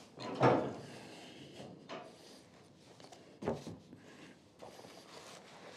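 Loose pine planks being handled and shifted against the wooden beams: faint rubbing and scuffing, with a sharp wooden knock about three and a half seconds in.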